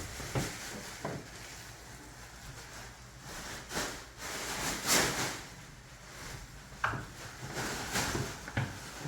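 Scattered knocks and bumps with rustling swishes, things being handled and moved about; the loudest swish comes about five seconds in.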